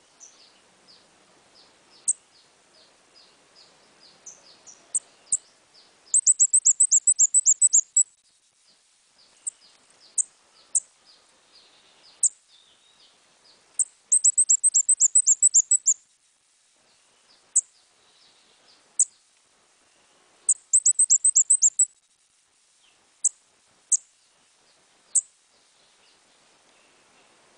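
A small songbird, the kind sold as a decoy under the Vietnamese name ốc mít, calling in thin, very high notes that each slide downward. Single sharp notes are scattered between three rapid runs of about a dozen notes, each run lasting about two seconds.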